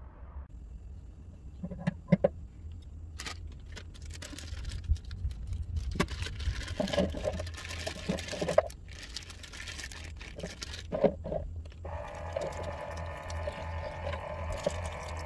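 Knocks and clattering, then a plastic bag rustling as sliced rice cakes are tipped into a stainless steel sink tray. About twelve seconds in, water starts running steadily from a mini sink's faucet into the tray over the rice cakes to soak them. A low steady hum lies underneath.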